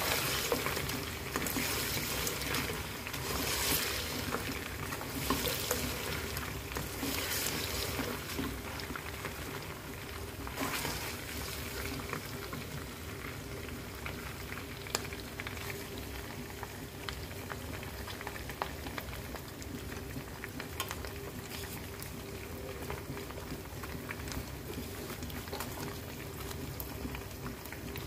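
Mutton pieces sizzling and bubbling in oil and their own juices in a wok, stirred with a spatula. The stirring strokes are busiest over the first several seconds, after which the sizzle goes on steadily with a few light clicks.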